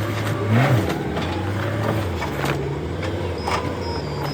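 Engine running steadily, with a short rev that rises and falls back just under a second in, and a couple of sharp knocks about two and a half and three and a half seconds in.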